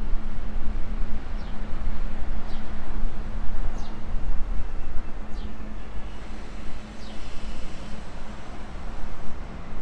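Steady low outdoor rumble with a hiss and a faint hum, and a bird giving short, high, falling calls about every second or so.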